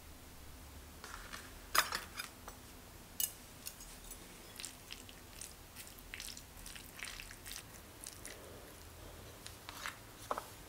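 Chopsticks mixing sauced instant ramen noodles with their toppings in a ceramic bowl. Irregular light clicks and taps of the chopsticks against the bowl come with short soft sounds of noodles being tossed.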